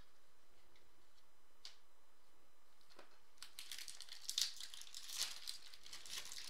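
Foil wrapper of a Topps Chrome trading-card pack being torn open and crinkled by hand, starting about halfway in, with a few sharper crackles.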